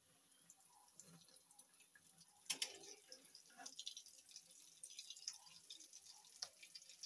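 Gram-flour-battered bread slices frying in hot oil in a kadhai: faint sizzling and crackling, with a couple of sharper clicks about two and a half and three and a half seconds in.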